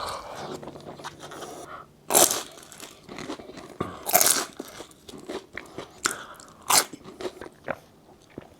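Close-up eating sounds: three loud crunching bites about two seconds apart, with quieter chewing and small clicks between them.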